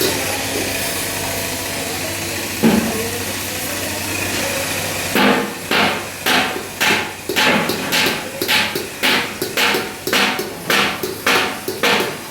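A steady hiss with one knock about two and a half seconds in. Then, from about five seconds in, a hammer striking metal in an even rhythm of about two blows a second.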